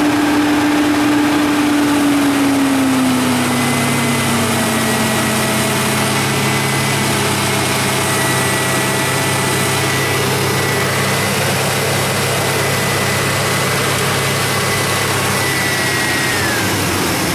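2001 GMC Sierra's Vortec V8 held above idle by hand at the throttle, running steadily; the revs ease down a little in the first few seconds, and the engine drops back near the end. A thin high whine runs alongside. The raised revs push coolant through the freshly flushed heater core to purge air after the thermostat change.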